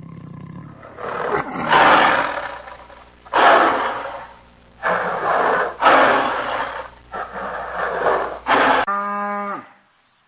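An animal roaring: about five loud, harsh roars, each a second or so long, followed near the end by a brief pitched call that falls away.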